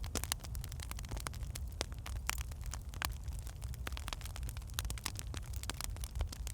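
Wood fire burning in a fireplace, with many irregular crackles and pops from the burning logs over a steady low rumble.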